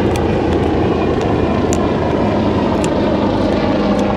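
Coastguard helicopter flying over: a steady, loud drone of engine and rotor, with a low humming tone joining about two seconds in.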